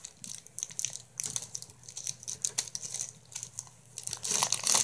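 A plastic wrapper crinkling and tearing as hands work at it, in many small sharp crackles, with a louder rustle near the end.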